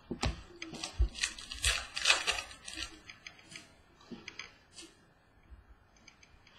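Trading cards being handled, shuffled and laid down on a wooden table: a quick run of clicks, taps and rustles for the first few seconds, then sparser, fainter handling.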